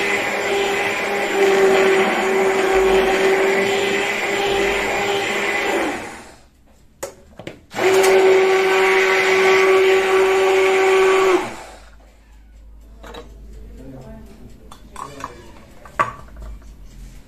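Hand-held stick blender running in a pot of warm milk. It runs steadily for about six seconds, stops briefly with a couple of clicks, then runs about four seconds more before it is switched off. A few light knocks follow, the clearest as the blender is set down in a clay bowl.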